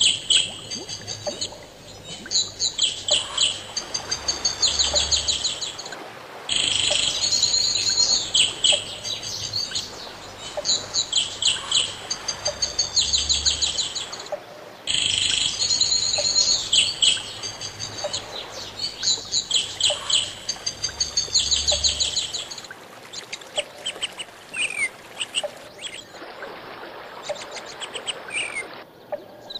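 Birdsong: many small birds chirping and trilling in high, quick phrases. The same stretch of song repeats twice, cut off sharply each time like a loop, then gives way to sparser chirps for the last several seconds.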